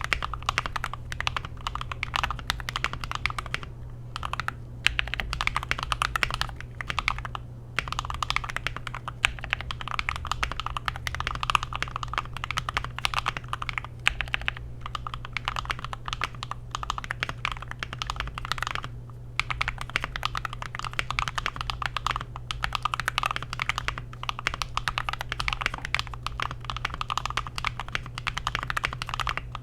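Continuous fast typing on a GMMK Pro mechanical keyboard with an FR4 plate, C3 Tangerine linear switches and a masking-tape mod: a rapid stream of keystroke clacks with a few brief pauses. A steady low hum sits underneath.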